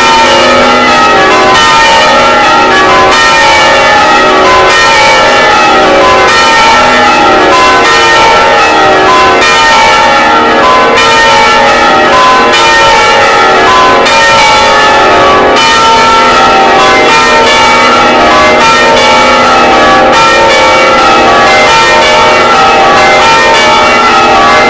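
Several church bells ringing loudly together in a continuous peal, their strikes overlapping so that many ringing tones at different pitches sound at once without a break.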